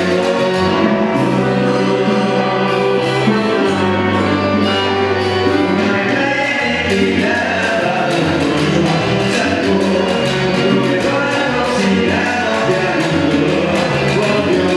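A band playing a song with group singing, over a bass line and hand and kit percussion.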